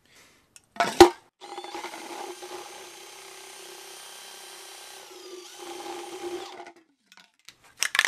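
Cordless drill running steadily for about five seconds, with a brief dip in pitch near the end. It is preceded by a sharp knock about a second in.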